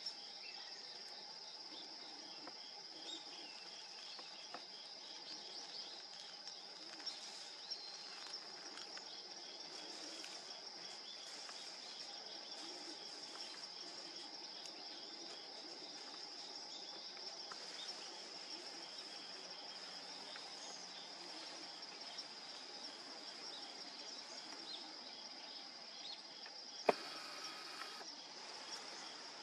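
Insects trilling steadily at a high pitch, with a fainter, lower steady tone beneath. A single sharp click comes about 27 seconds in.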